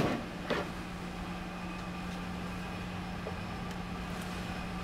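Steady hum of laboratory equipment and ventilation: one constant low tone over an even hiss. A faint knock or two as the plastic cover of the analyzer's autosampler is lifted off and handled.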